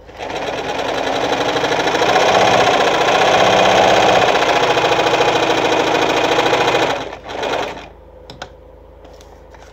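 Victoria Nuzstitch ZZ-570 sewing machine sewing a straight stitch at stitch length 2. Its motor speeds up at the start and runs steadily for about seven seconds, then stops. A brief second run follows just after.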